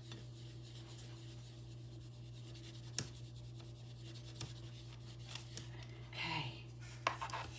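Faint rubbing as a puck-shaped hand press with a foam base is worked over a clear acrylic stamp block on cardstock. There is one sharp click about three seconds in, and a few light clicks near the end as the block is lifted, all over a steady low hum.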